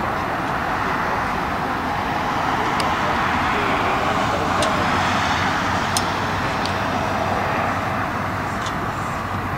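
A steady, loud roar that swells a little in the middle, with a few faint clicks.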